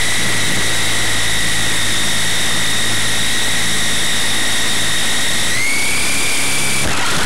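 Toy RC helicopter's electric motor and rotors whining in flight, heard close up through the onboard camera's microphone: a steady high whine over a rushing hum. Its pitch steps up slightly about five and a half seconds in, and the whine stops shortly before the end.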